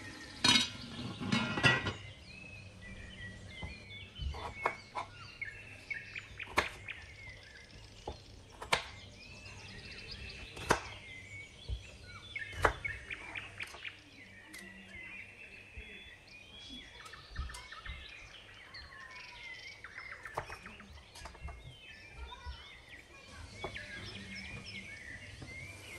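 A lid clatters onto a large cooking pot, then a knife cuts and snaps a head of cauliflower into florets on a wooden board in a run of sharp cracks and knocks. Bird chirps sound throughout.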